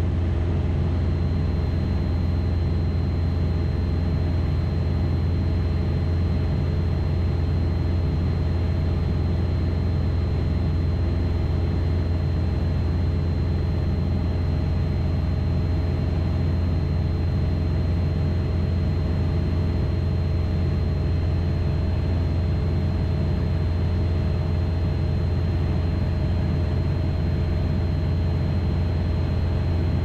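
Steady drone of a single-engine piston light aircraft's engine and propeller at cruise power, heard from inside the cabin, with a thin steady high-pitched whine above it.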